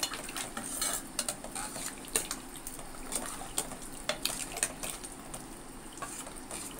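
Steel ladle stirring watery lentil-and-vegetable sambar in a stainless steel pot: the liquid sloshes, with many irregular clinks of the ladle against the pot.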